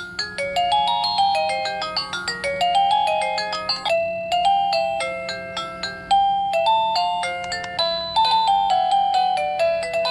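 Home Zone wireless doorbell receiver playing one of its electronic chime tunes: a fast melody of short, bright notes, one after another, with a faint steady hum underneath.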